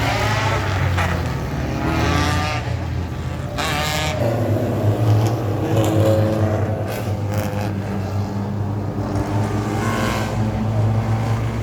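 Pro Compact race car engines running at racing speed, the engine note rising and falling steadily.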